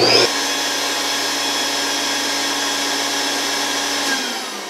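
A CNC router spindle and a Dayton industrial wall-mount vacuum start together on one switch. There is a whine that rises quickly as the router spins up, over the steady rush of the vacuum. About four seconds in both cut off and wind down with a falling whine.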